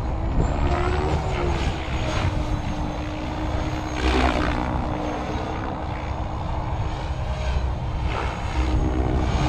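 SAB RAW 580 electric RC helicopter in flight: the rotor and motor make a steady whine that shifts in pitch, over a low rumble. Rotor blades whoosh several times during manoeuvres, loudest about four seconds in.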